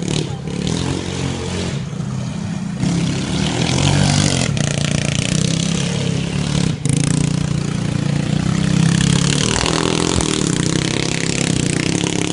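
Engine running and revving, getting louder about three seconds in, with a brief drop about seven seconds in.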